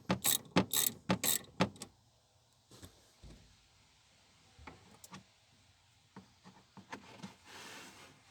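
Ratchet wrench clicking quickly, about four clicks a second, as it undoes a car battery terminal nut, followed by a few fainter scattered clicks and knocks.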